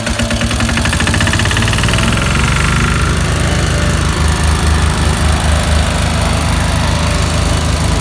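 Engine of a road construction machine running steadily and loudly, with a rapid even pulsing.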